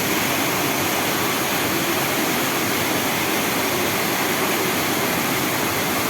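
Steady rush of a small waterfall, water cascading over rocks into a pool, an even unbroken roar.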